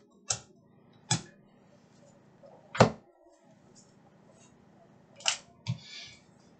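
Trading cards being handled: about five short sharp clicks and taps as a stack of cards is sorted and squared in the hands, the loudest just under three seconds in, followed by a brief rustle near the end.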